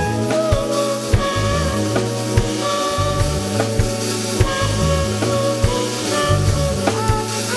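Instrumental music slowed down: a bass line, a drum kit and melodic keyboard or guitar notes, with no singing.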